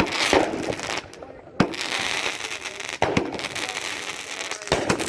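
Aerial fireworks going off overhead: four or five sharp bangs, roughly a second or more apart, with crackling in between.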